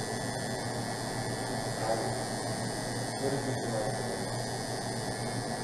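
Electric tattoo machine running with a steady hum as the needle works into the skin.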